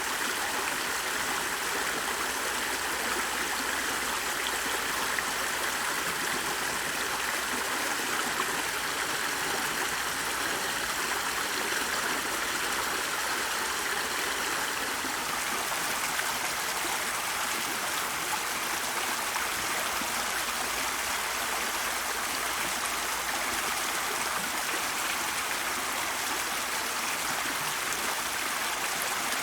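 Flowing water of a stream, an even, unbroken rushing.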